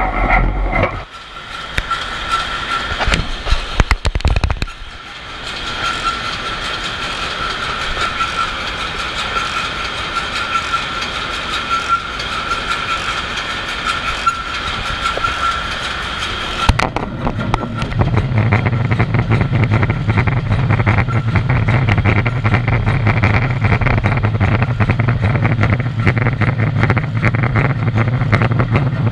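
B&W two-stroke slow-speed marine diesel main engine running at about 51 rpm and 7600 kW, heard up at its cylinder tops: a steady, loud mechanical clatter with a high whine through the middle. The sound shifts abruptly a few times and from about 17 seconds in turns to a heavier low rumble.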